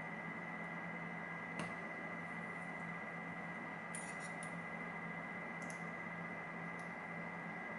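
A few faint, sharp metallic clicks from a pin tumbler lock and small tools being handled, including a quick cluster of clicks about halfway through. A steady low hum sits underneath.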